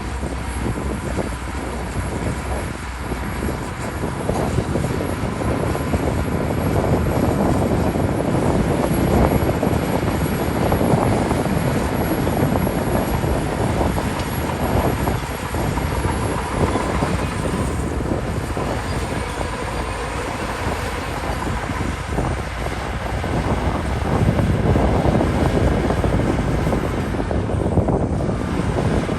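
Diesel engine of heavy earthmoving machinery running under load, with a faint steady whine; it grows louder several times as the machine works.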